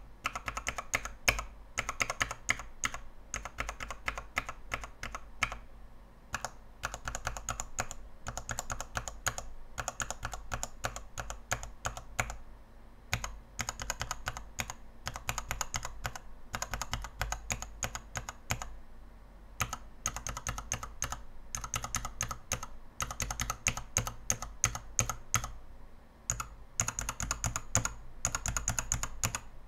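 Mechanical keyboard switches on a KBDfans 72-switch tester, with an acrylic base and dye-sub XDA keycaps, pressed in quick runs of clacking keystrokes. Short pauses come between the runs.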